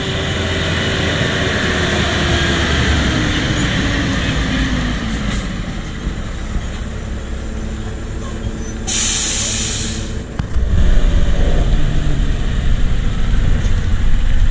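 Heavy truck passing, its engine note falling over the first few seconds, with a short burst of air-brake hiss about nine seconds in.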